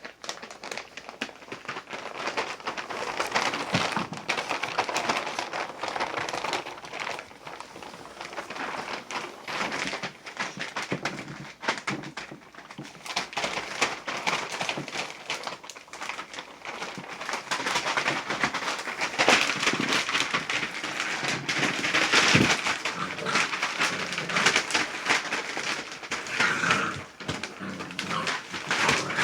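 Six-week-old pit bull puppies scuffling and moving about: a continuous clatter of small scratches, taps and rustles, with a short high whine near the end.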